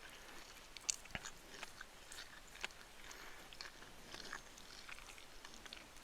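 A person chewing and biting a mouthful of chicken fried rice, with scattered small crunches and clicks, the sharpest about a second in.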